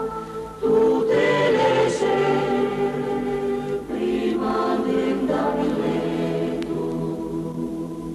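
Choir singing an Italian mountain song in sustained, held chords, with short breaks between phrases about half a second and four seconds in, and fading near the end.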